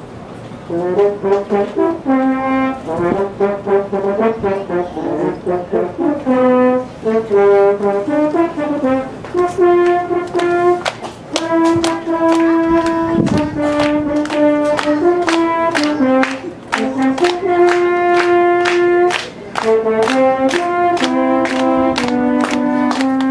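French horn played solo, the player's right hand in the bell, playing a melody of short and held notes that starts about a second in.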